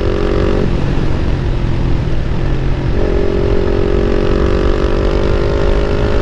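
Motorcycle with an Akrapovic aftermarket exhaust running on the move, heard under heavy wind rumble on the microphone. The engine note drops away about half a second in, comes back about three seconds in and then climbs slowly as the bike picks up speed.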